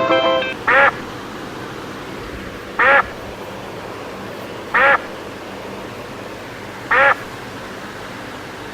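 Duck quacking: four single short quacks, evenly spaced about two seconds apart, over a steady background hiss.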